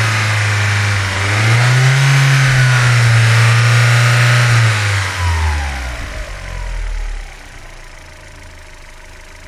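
Car engine held above idle, its revs rising a little about a second and a half in. It drops back about five seconds in and settles to a much quieter idle from about seven seconds.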